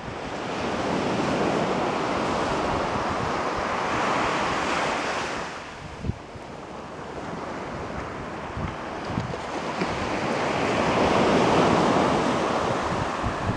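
Surf washing up on a beach: two waves swell and break, one in the first half and a louder one near the end, with wind buffeting the microphone.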